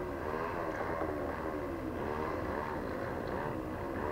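Brush cutter motor running, its pitch rising and falling over and over as it cuts grass.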